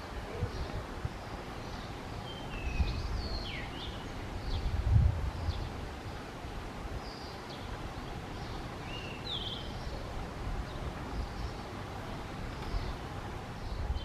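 Male blue rock thrush singing: short, clear whistled phrases of a few notes, some sliding in pitch, spaced a couple of seconds apart. A low background rumble runs beneath, swelling about five seconds in.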